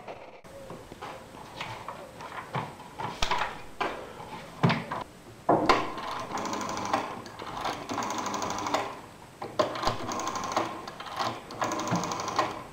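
A small machine rattling in short bursts of a second or so, four times in the second half, among sharp knocks and clicks of handling.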